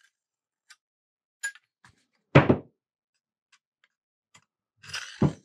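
Light clicks and knocks from the removed chainsaw guide bar being handled over a wooden workbench. One loud thunk comes about two and a half seconds in, and a short scrape and a second thunk come near the end.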